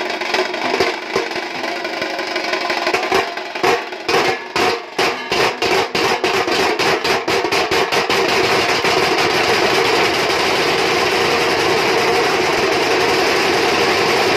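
Nashik dhol ensemble of large barrel dhols and tashas drumming loudly. A few seconds in, the beats break into separate strokes that come faster and faster, merging into a fast continuous roll from about eight seconds on.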